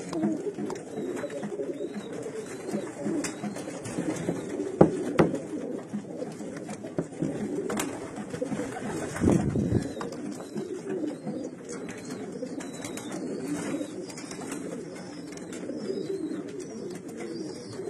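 Several racing pigeons cooing, their low coos overlapping without a break, with a few sharp taps mixed in.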